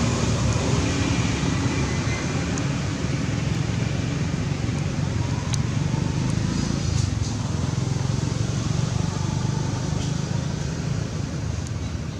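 Steady low rumbling background noise with an even hiss above it and a few faint ticks.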